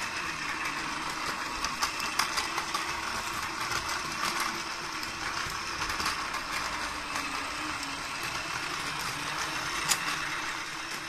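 Battery-powered Plarail toy train (Keikyu 2100 series Blue Sky Train) running on plastic track: its small motor and gears whir steadily, with light clicks and rattles as the wheels pass over the track joints. The sound fades a little near the end.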